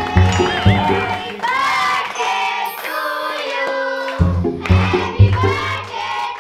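Music with a steady beat and a group of voices singing, children's voices among them.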